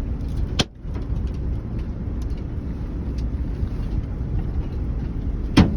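Steady low rumble of a car driving, heard from inside the cabin, with two sharp loud knocks, one just after the start and one near the end, and a few faint clicks between.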